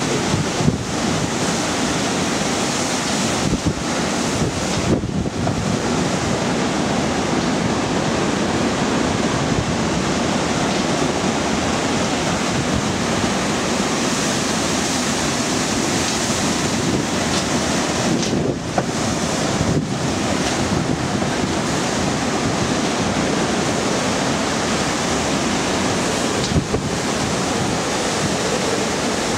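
Hurricane-force wind blowing through trees, a loud steady rush that buffets the microphone, with a few brief lulls.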